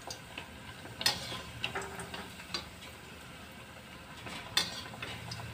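Perforated metal skimmer clicking and scraping against a steel kadhai as it turns thekua frying in hot oil. A handful of sharp knocks, the loudest near the end, over a faint sizzle.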